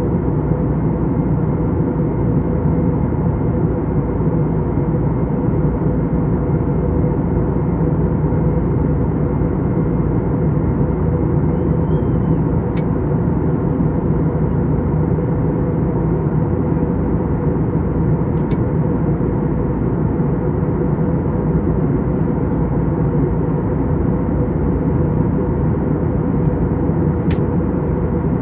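Steady cabin noise of an Airbus A321neo in flight: the drone of its CFM LEAP-1A engines and rushing airflow, with a steady hum. A few faint clicks come through about halfway in and near the end.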